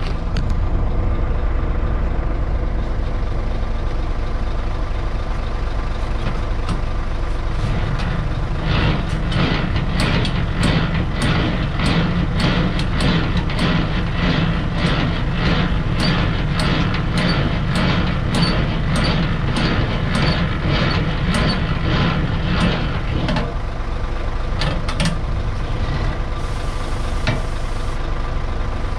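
Semi-trailer landing legs being wound down with the hand crank, a click about twice a second from the crank gear from about eight seconds in until about twenty-three seconds in. Under it runs the steady idle of the Scania tractor's diesel engine.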